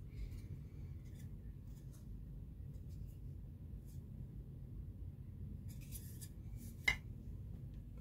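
Low steady room hum with faint scattered clicks and light rustling, as when small parts and tools are handled, and one sharper click about seven seconds in.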